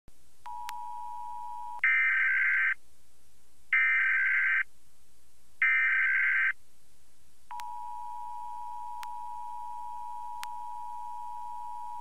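Emergency Alert System broadcast tones: three short, loud bursts of screeching data tones, each about a second long and evenly spaced (the digital SAME header), followed about seven and a half seconds in by the steady two-tone EAS attention signal. The same two-tone signal also sounds briefly before the first burst.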